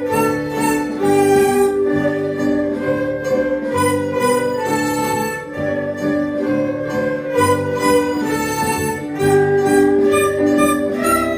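Chinese traditional ensemble playing a children's-song medley: erhu bowing the melody over plucked guzheng, zhongruan and liuqin, with bamboo dizi flute.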